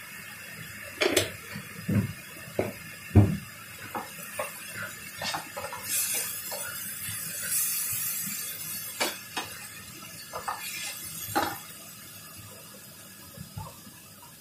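A wooden spatula stirs minced pork in a nonstick frying pan, knocking and scraping against the pan at irregular moments, over the sizzle of the frying meat. The sizzle swells for a few seconds midway, and the knocks die away near the end as the stirring stops.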